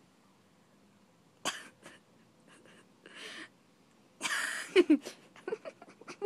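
Coughing: a short sharp cough about a second and a half in, a softer breathy one near the middle, and the loudest cough about four seconds in, followed by a quick run of short voice sounds.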